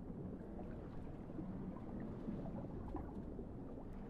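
Video game underwater ambience as a character swims below the surface: a steady low rumble.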